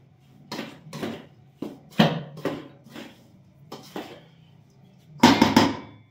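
Metal spoon scraping and knocking against a stainless steel bowl while stirring a dry flour mixture, in irregular strokes, with the loudest clatter about five seconds in.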